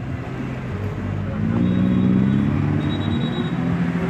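A motor vehicle's engine running close by: a low, steady hum that grows louder from about a second and a half in.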